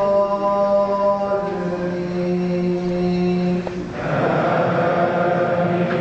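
An imam chanting Quran recitation in tarawih prayer: a man's voice in slow melodic tajwid, holding one long note for about two seconds before the line moves on.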